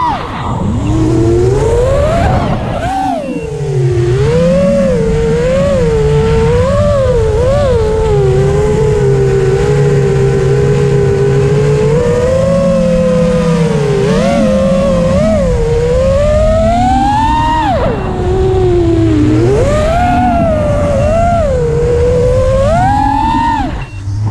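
FPV quadcopter's motors and propellers whining as heard from the onboard camera, the pitch sweeping up and down with the throttle over a rush of wind. The whine drops away briefly a few times, about three seconds in, around eighteen seconds and just before the end, as the throttle is chopped.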